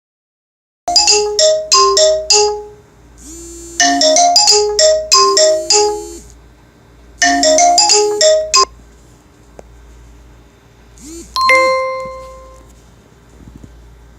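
Phone ringtone melody of quick bell-like notes, a short phrase played three times, followed by a single chime that rings out and fades.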